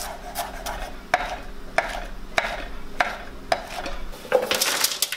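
Chef's knife chopping shallot and then oyster mushrooms on a wooden cutting board: single knocks of the blade on the board about every half second or so, coming quickly in a rapid run near the end.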